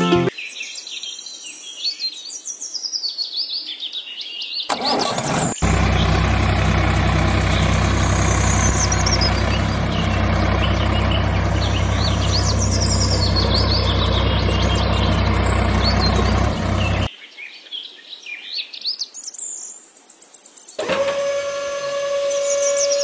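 Birds chirping throughout. About five seconds in, a tractor engine starts and runs at a steady hum, then cuts off suddenly at about seventeen seconds. Near the end a steady high whine comes in under the birdsong.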